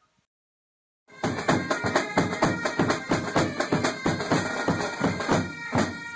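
Background music with a fast, steady drum beat, starting suddenly about a second in after dead silence.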